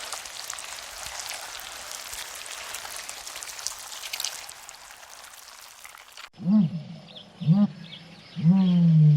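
An even hiss with scattered small clicks; then, after a sudden cut about six seconds in, a cow mooing: two short moos about a second apart, then a longer one starting near the end.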